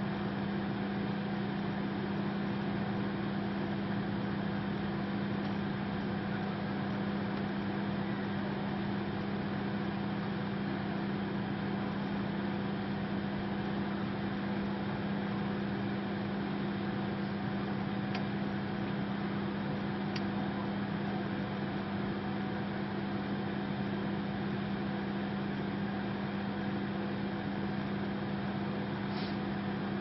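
Microwave oven running: a steady low hum with a few faint ticks in the second half.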